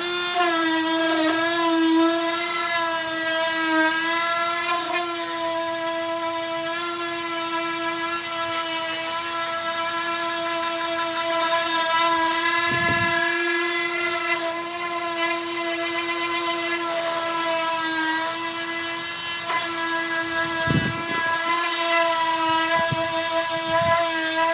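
Electric power sander running steadily on a wooden table top, with a constant high motor whine. A few brief low knocks come about halfway through and again near the end.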